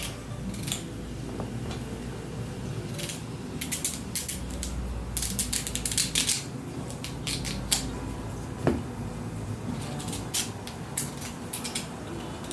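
Knife cutting carrots into cubes on a chopping board: irregular sharp chops, some coming in quick runs.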